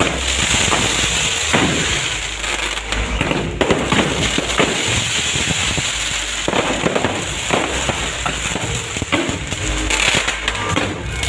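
Fireworks going off in a dense, continuous crackle of many rapid pops and bangs.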